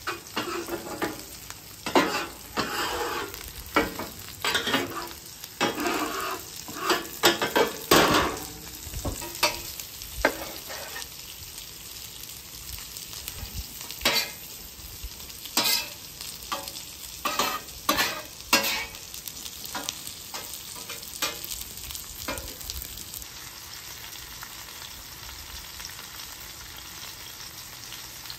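A metal spatula scraping and tossing green beans on a hot flat-top griddle, with many sharp scrapes and clacks, over a steady sizzle of food frying in oil. The spatula strokes stop a little over twenty seconds in, leaving only the sizzle.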